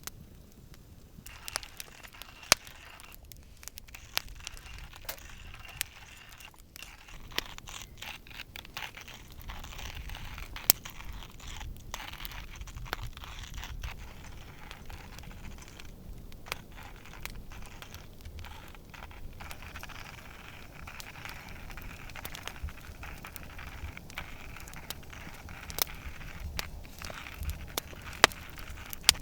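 Wood campfire crackling, with irregular sharp pops over a low hiss.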